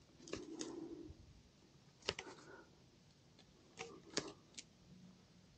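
Faint handling noise as a replacement grip is wound onto a tennis racquet handle: soft rubbing near the start, then a few scattered light clicks.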